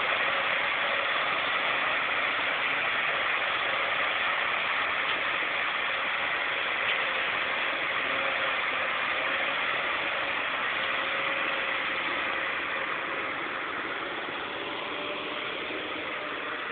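Heavy diesel engine running steadily, a little quieter over the last few seconds.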